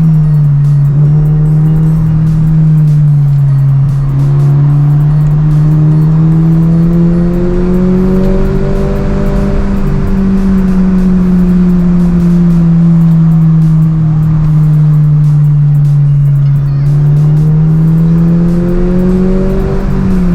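Subaru BRZ's flat-four boxer engine heard from inside the cabin under way, its drone slowly rising and falling in pitch several times as the car accelerates and eases off.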